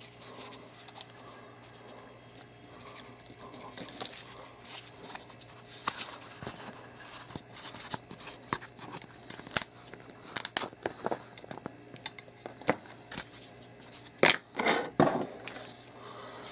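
Apple EarPods packaging being opened and handled by hand: the plastic storage case clicking, packaging crinkling and the earbud cable being pulled out. Scattered short clicks and rustles, with a louder cluster of clicks near the end.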